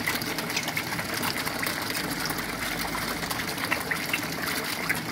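Water churning at the surface of an eel-rearing tank: a steady rush of water with a dense patter of small splashes and pops.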